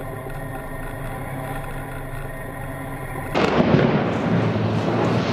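Tank engine running with a steady drone, heard from on top of the tank. About three seconds in, the sound cuts abruptly to a louder, rough rumbling noise.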